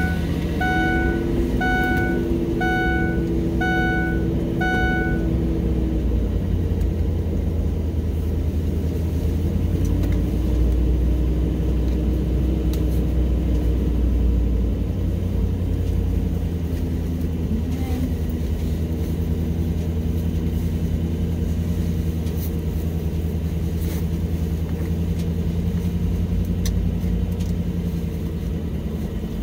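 Car engine idling steadily just after being started, a low hum that grows heavier for several seconds partway through. Over the start of it, a dashboard warning chime beeps five times, about once a second.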